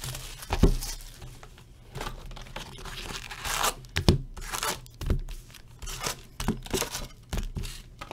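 Plastic shrink wrap being torn and crinkled off a cardboard trading-card box, then the box lid opened and its flaps handled, with a few sharp taps of cardboard.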